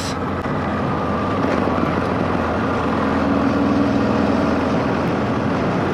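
Single-cylinder Yamaha Ténéré 660 motorcycle engine running steadily while riding, under wind and road noise.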